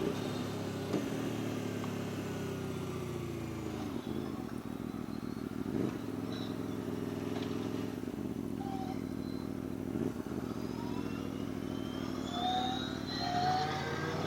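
Aprilia Tuono V4 1100 RR's V4 engine running under way on the road, its pitch falling and rising a few times as the revs change.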